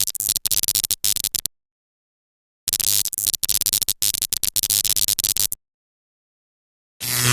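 Synthesized sci-fi laser or stun gun sound effect: two rapid, stuttering electronic zapping bursts, a short one and then a longer one, with silence between them. Near the end a different, steady buzzing effect starts.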